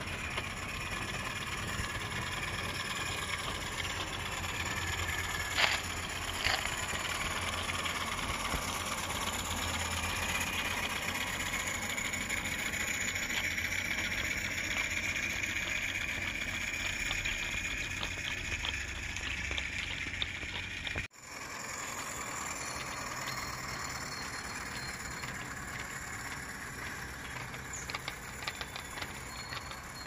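Regner Heisler live-steam garden-railway locomotive running under steam with its train: a steady hiss of steam and running gear, with two sharp clicks about six seconds in. The sound cuts out for an instant about two-thirds through.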